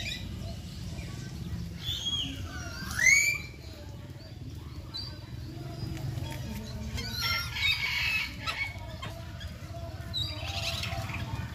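Birds calling in short rising chirps, the loudest about three seconds in, with bursts of feather rustling as an oriental pied hornbill preens, over a steady low rumble.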